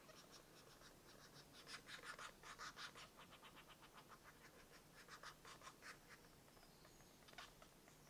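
Green woodpecker nestlings begging inside the nest hole as the adult feeds them: a rapid rattle of short, raspy pulses that comes in bouts, loudest about two to three seconds in.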